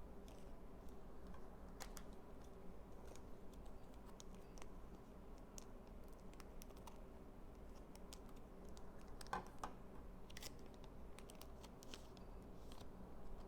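Faint, irregular clicks and light scrapes of Pokémon trading cards and pack wrappers being handled, over a low room hum.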